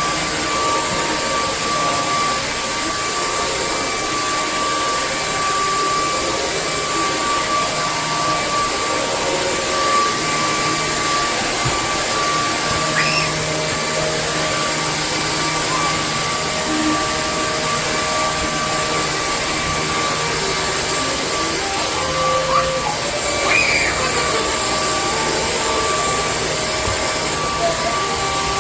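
Hoover ONEPWR Evolve Pet Elite cordless stick vacuum running steadily, its motor making an even rushing noise with a constant high whine.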